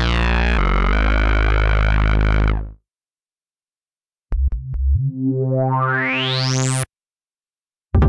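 Cherry Audio Miniverse (Minimode) software Minimoog emulation playing bass presets. A held low bass note opens bright and darkens as its filter closes, fading out after about two and a half seconds. After a pause, a second patch plays a few short low notes and then a held bass note whose resonant filter sweeps steadily upward; it cuts off abruptly about seven seconds in.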